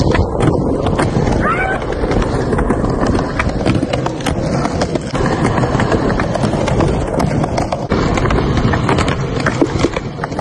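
Skateboard wheels rumbling over rough asphalt, with many sharp clacks and knocks as the board is popped and lands on the ground and the box.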